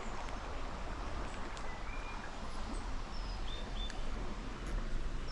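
Steady rush of a small stream's flowing water, with a few short, thin bird chirps about two seconds in and several more between three and four seconds.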